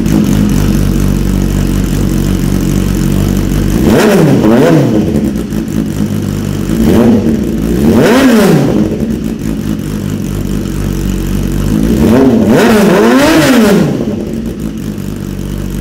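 BMW S1000RR inline-four breathing through a replica (copy) Austin Racing slip-on exhaust, idling and then blipped on the throttle: two quick revs about four seconds in, two more around seven and eight seconds, and another pair near the end before it drops back to idle.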